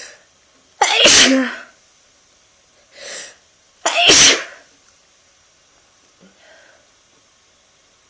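A person sneezing twice, about three seconds apart, each loud sneeze preceded by a short in-breath. A faint breath follows near the end.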